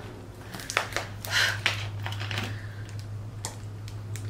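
Thin plastic water bottle crackling in the hand as its cap is twisted off and it is tipped up to drink, a run of scattered short clicks and crinkles. A steady low hum sounds underneath.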